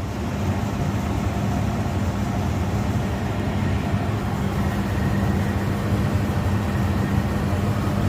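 A steady low mechanical hum with an even hiss over it, like machinery running.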